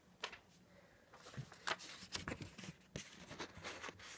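A sheet of paper being handled and rustled close to the microphone: one sharp tick near the start, then a run of crackles and rustles from about a second in.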